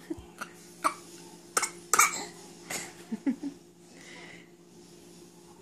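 A baby giving a string of short, put-on fake coughs over about three seconds, then going quiet. The coughs are playful, not a sign of illness.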